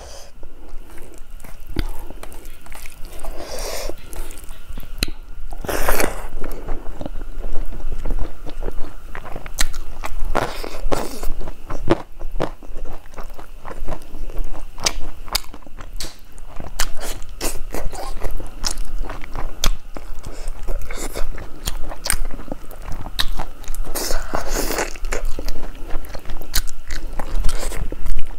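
Close-miked eating: wet chewing and lip-smacking of handfuls of rice and fish curry, with many sharp mouth clicks and fuller chewing spells every few seconds.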